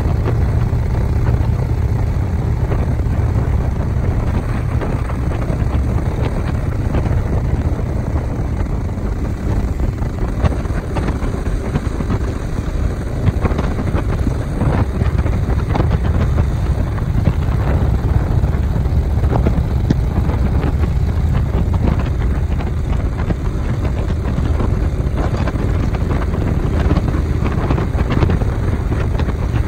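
A vehicle running steadily: a continuous low rumble with wind noise and scattered small knocks, as on a moving ride.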